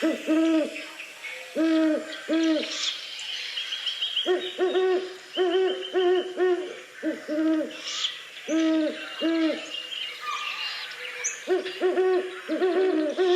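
Great horned owl hooting: many short, low hoots in irregular runs of a few at a time, with short pauses between the runs.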